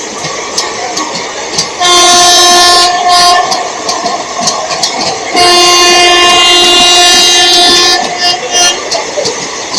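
Train horn sounding twice over the noise of a train running on the rails. The first blast is short, about two seconds in; the second is a steady blast of about two and a half seconds, starting about five seconds in. Repeated wheel clicks run through the rail noise.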